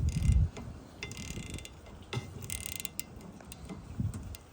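Snap-on XFRRM705 ratcheting wrench clicking in short bursts as it turns a wiper arm nut off, after a heavy low clunk at the very start.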